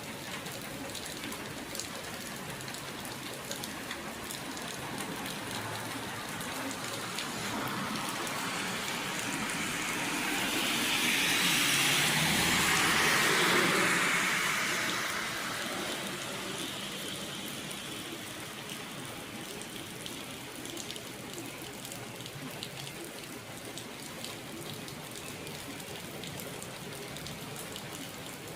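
Steady rain falling and pattering on surfaces. About halfway through, a louder rushing swell builds over a few seconds and fades away again.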